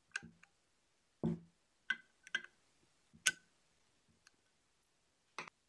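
Flat-head screwdriver clicking and clinking against the slotted steel screws of a bench vise's jaw plate as they are driven in: about six separate light metal taps, with a duller knock about a second in.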